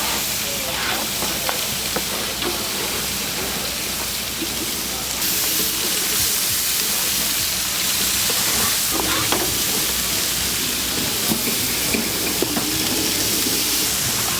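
Jerk chicken sizzling on a charcoal grill: a steady hiss that gets louder about five seconds in.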